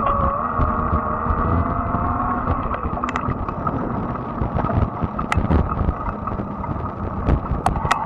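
Fat-tire electric bike rolling over asphalt: a steady whine from its electric drive, with a second, lower whine that rises a little and fades out about two and a half seconds in, over a constant rumble of tyres and wind. Scattered sharp clicks and ticks from the bike come through.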